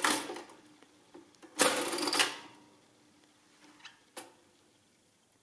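1913 Barrett model 6 adding machine's side lever being pulled with the red clearing button held down, clearing the register. There is a clack at the start, a longer mechanical rattle about a second and a half in with a faint metallic ring after it, and a single sharp click about four seconds in.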